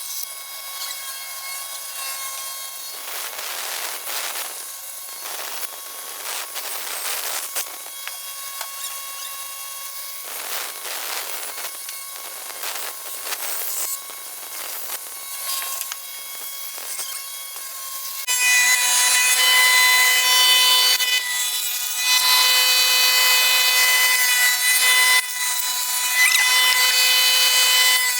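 Woodworking power saw cutting wood: a steady motor whine at one pitch with stretches of rasping cutting noise. About eighteen seconds in it turns much louder and stays loud.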